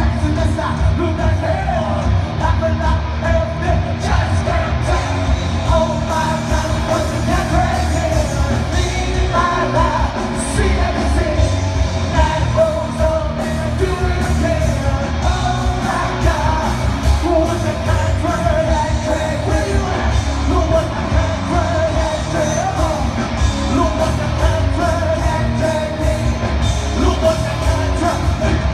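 Loud live concert music with a singer's voice over a heavy, unbroken bass, recorded from within the crowd.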